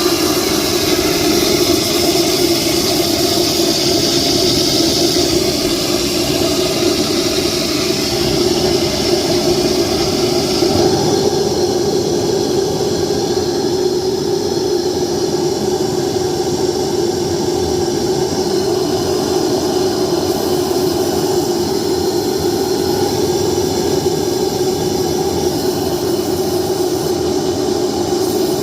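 Small lathe running steadily while turning a model steam injector cone down to length on an arbor. About eleven seconds in, the higher, hissing part of the cutting noise eases off.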